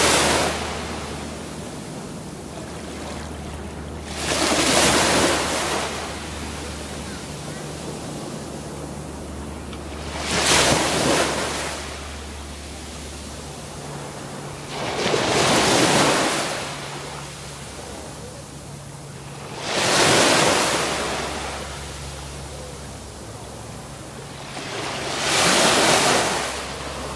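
Small sea waves breaking at the water's edge and washing up the beach, one about every five seconds, each wash swelling and fading over about two seconds.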